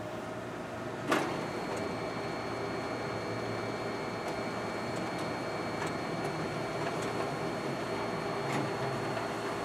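Ricoh MP C3002 colour copier running a copy job: a sharp clack about a second in, then a steady mechanical whir with a thin high whine and occasional light ticks.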